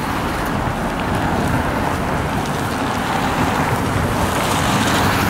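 Strong wind buffeting the camera microphone: a loud, steady rush with uneven low rumbling, slowly building.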